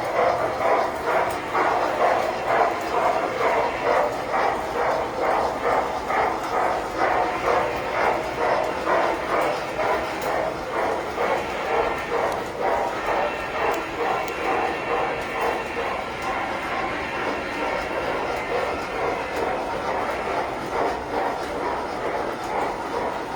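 Tinplate model train running on the layout, with a steady rhythmic clatter of about two to three beats a second that grows less distinct in the second half.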